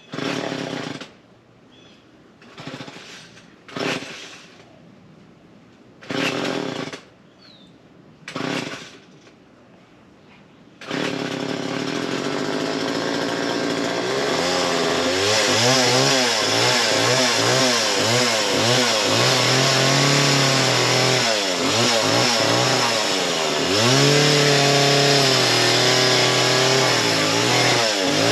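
Small gas chainsaw being started. Several short sputters over the first ten seconds, then the engine catches about 11 seconds in and keeps running. From about 14 seconds on it revs up and down repeatedly, with sharp drops in pitch.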